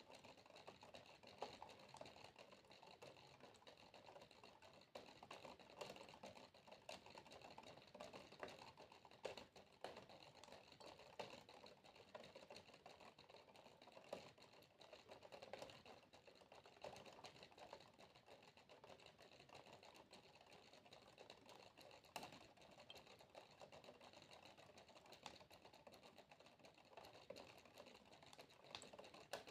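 Water droplets dripping: a faint, dense, irregular patter of small ticks that goes on throughout.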